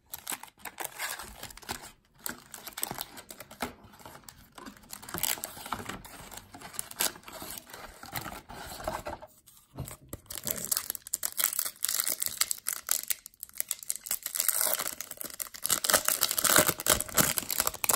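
Foil wrapper of a trading-card pack crinkling and being torn open by hand, a dense crackle that gets louder in the second half.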